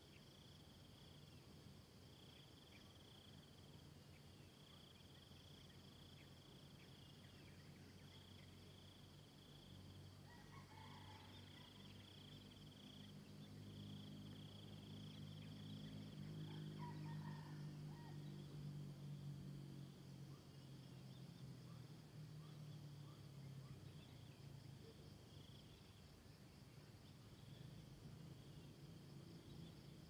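Faint insects trilling steadily, a high-pitched trill that keeps breaking off and starting again every second or two, over a finer, higher trill. A few faint bird calls sound in the middle, while a low droning hum swells and then fades.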